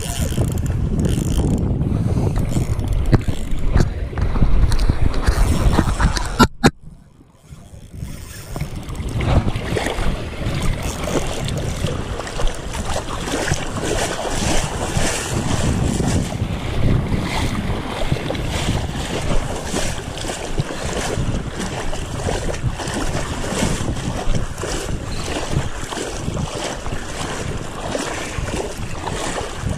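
Wind buffeting the microphone over the sloshing of shallow surf around a wading angler. About six and a half seconds in there is a sharp click, the sound drops away for a second or so, and then the wind and water noise returns steadily.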